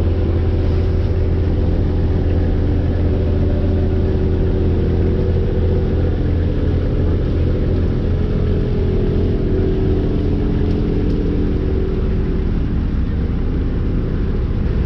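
Riverboat engine running steadily at low speed, a loud, even drone that holds one pitch, with the boat slowed nearly to a stop.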